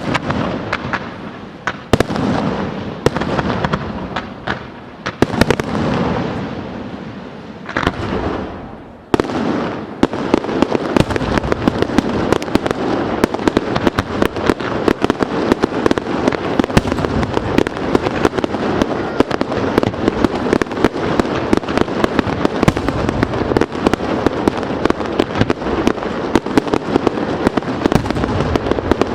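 Fireworks display: separate loud bangs, each trailing off in a rumbling echo, for the first nine seconds or so. Then a dense, continuous barrage of rapid-fire reports and crackling.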